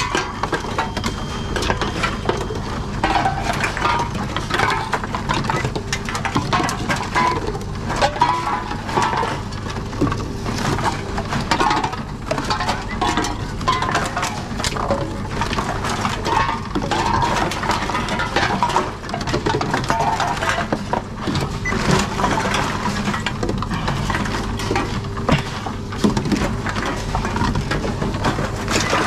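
Aluminium drink cans and plastic bottles clinking, rattling and crinkling as they are handled and fed one after another into a reverse vending machine, with many short clinks throughout. A steady low hum runs underneath.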